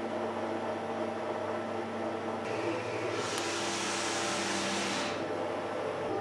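Roland large-format print-and-cut printer cutting out a vinyl sticker: the carriage and feed motors whine steadily, changing pitch about two and a half seconds in, with a louder hiss from about three to five seconds in.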